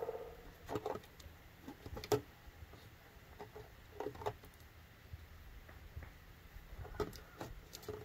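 Faint, scattered light clicks and knocks from hands working at a tapped birch tree, a few every couple of seconds, the sharpest about two seconds in.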